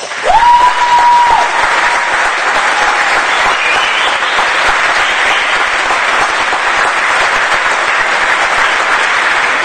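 Audience applauding steadily, with one sharp whistle near the start that rises and then holds for about a second.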